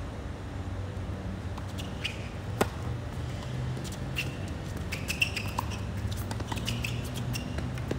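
Tennis rally on a hard court: a tennis ball struck by rackets with sharp pops, the loudest about 2.6 s and 5.2 s in, and fainter hits between, while tennis shoes squeak briefly on the court surface. A steady low hum runs underneath.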